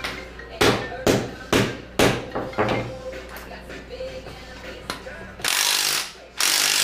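Hand tools working on engine bolts: a series of sharp metal knocks and clicks over a low hum. About five and a half seconds in, a loud, steady rushing noise begins.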